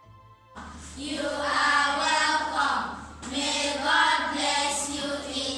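A class of children's voices together in unison, starting about a second in and going in phrases with a short break near the middle, over a low steady hum. The first half-second holds the faint end of a music track.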